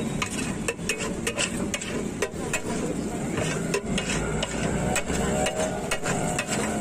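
Metal spatula scraping and clacking against a large flat tawa griddle as rice is stirred and tossed, with many sharp, irregular clicks.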